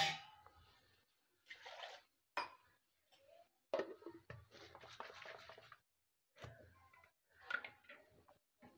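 Wooden spatula stirring a thick masala paste in a non-stick kadai: wet scraping in short irregular bursts with occasional sharp knocks of the spatula against the pan, the loudest at the very start.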